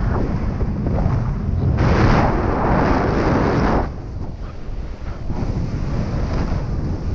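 Wind rushing over the microphone of a paraglider in flight: a steady rumble that swells louder about two seconds in, then eases off about four seconds in.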